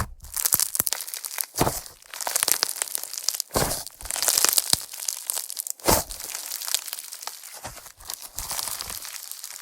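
Slime being pressed and stretched by hand, with a dense crackling, crinkling texture. A few louder pops and squishes come about two seconds apart.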